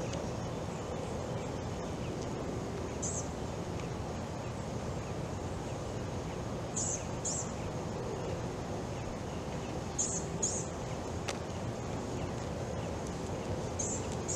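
Outdoor ambience: a steady low background noise, with short high bird chirps, mostly in pairs, coming several times.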